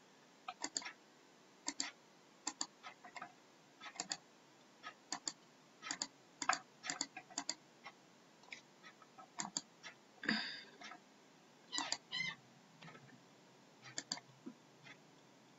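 Computer mouse clicking repeatedly, many short clicks often in quick pairs, with a brief higher-pitched sound of about half a second around ten seconds in.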